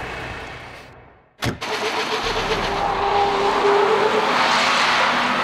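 Semi-truck tractor unit driven hard on tarmac: the engine runs under load and a rush of tyre noise builds, loudest in the second half, as the truck skids. A short click comes about a second and a half in.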